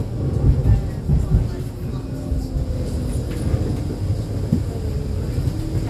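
E2-class tram in motion, heard from inside the passenger cabin: a steady low rumble, with a few faint short held tones from about two seconds in.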